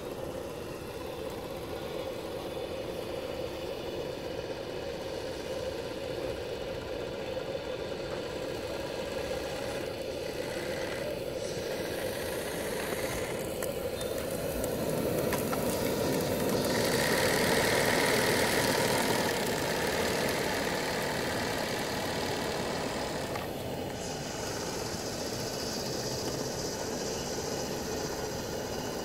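Homemade model steam boat's 5cc four-cylinder oscillating steam engine, fed by a gas-fired boiler, running steadily under way on the water. It grows louder about halfway through as the boat passes close, then fades a little.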